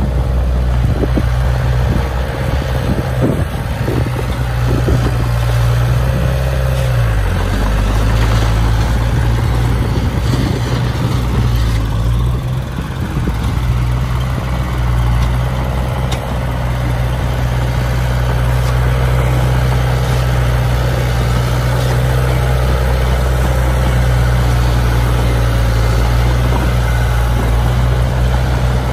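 Heavy diesel earth-moving machinery engine running steadily, its pitch dropping briefly about seven seconds in as the load changes, with a few knocks in the first few seconds.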